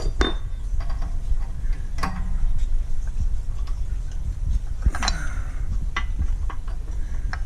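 Scattered sharp metallic clicks and clinks, about half a dozen, as the press and the bearing and pulley parts are handled after the pressure is released on a bearing going in crooked, over a steady low rumble.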